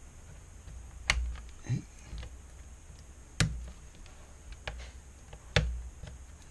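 Sharp plastic-and-metal clicks as a small prying tool works the plastic latches on an LCD panel's metal frame: three loud clicks about two seconds apart, with fainter taps between them.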